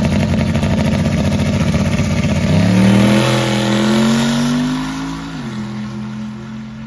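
Drag car (an older four-door sedan) launching and accelerating down the strip at full throttle. The engine note climbs steadily, drops once about five seconds in at a gear change, then holds and fades as the car pulls away.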